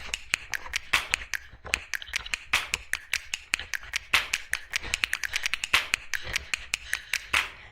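Airsoft guns firing in an exchange of shots: a rapid, irregular run of sharp clicks and pops, several a second.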